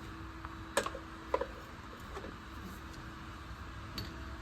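A few light clicks and knocks, as of something being handled, over a steady low hum with a faint held tone.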